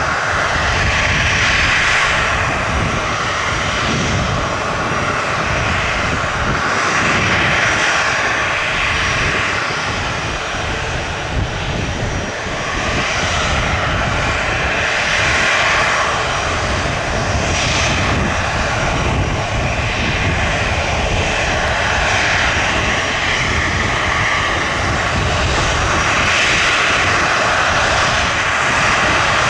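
Jet airliner's turbofan engines running at idle after pushback, before taxiing. A steady rush of engine noise whose upper whine swells and eases every few seconds.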